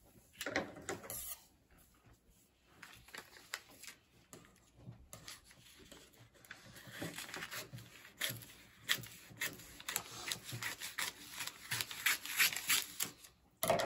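Scissors snipping through a sheet of wrapping paper, a run of short cuts with the paper rustling. The snips come thicker and louder in the second half.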